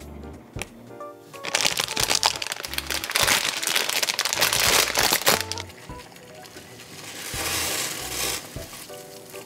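Plastic wrapper of a Buldak Bokkeum-myeon instant-noodle packet crinkling loudly as it is handled and opened, for about four seconds from a second and a half in, over background music. Near the end, a softer hiss of boiling water as the dry noodle block goes into the pot.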